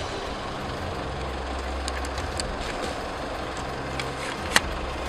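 Car engine idling with a steady low hum over a background hiss, and a sharp click about four and a half seconds in.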